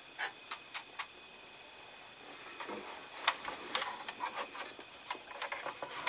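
Plastic model parts being handled: a few light clicks, then more clicks and rubbing from about three seconds in as the interior tub of a 1/8 scale model car is moved over the chassis.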